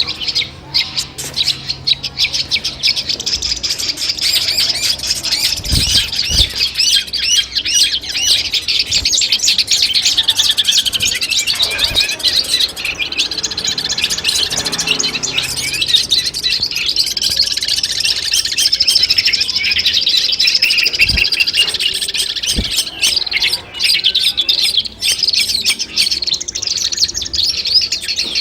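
Long-tailed shrike (cendet) singing a continuous, fast chattering song of rapid high chirps and trills, with a few brief low thumps underneath.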